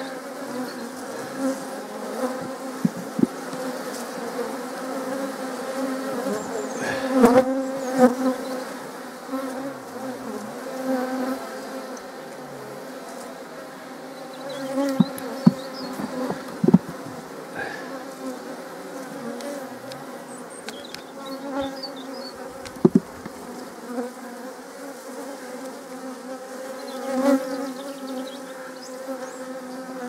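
Honeybees buzzing over an open hive: a steady hum whose pitch wavers slightly. A few sharp knocks as the wooden hive frames are handled.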